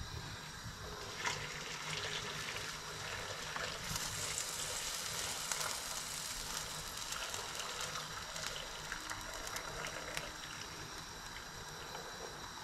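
Hot water poured from a kettle into a pot of potatoes on the stove: a steady stream of water that starts about four seconds in and runs for several seconds, over a low steady hum.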